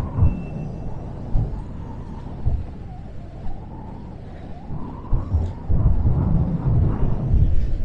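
Freight train rolling through a junction: irregular low clunks of wheels over rail joints, coming thick and fast in the last couple of seconds, under a faint wavering squeal of wheel flanges.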